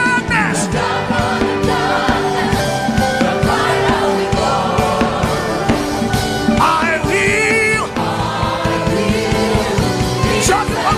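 Gospel worship music: voices singing over sustained instruments and a steady drum beat.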